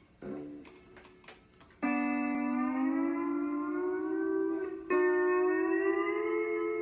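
Pedal steel guitar playing sustained chords that bend up in pitch. A soft pluck and light clicks come first, then a chord about two seconds in and a second one about five seconds in.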